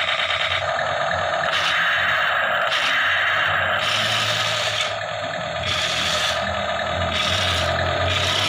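Toy remote-control tank's electric gear motors whirring and its plastic tracks scraping over concrete as it drives and turns, the grinding changing every second or so. In the first half second the toy's electronic machine-gun sound effect stops.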